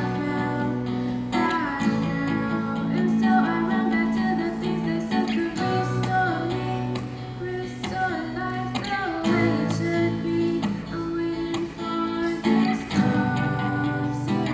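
Live music: a guitar strumming chords that change every few seconds, with a singer's voice over it.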